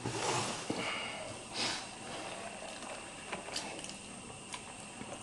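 Faint handling noises at a workbench: a few soft rustles in the first two seconds, then scattered light clicks of small parts.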